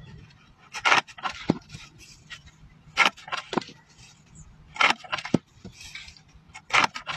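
Foot-operated shears rigged on a wooden board snipping through bundles of plant roots: a sharp cut followed by a second clack about half a second later, repeated four times, roughly every two seconds.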